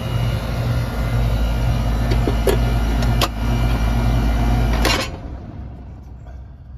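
Central air-conditioning condensing unit running, a steady compressor and fan hum with a couple of sharp clicks, while the system is a little low on refrigerant. The hum cuts off abruptly about five seconds in, leaving a much quieter background with faint clicks.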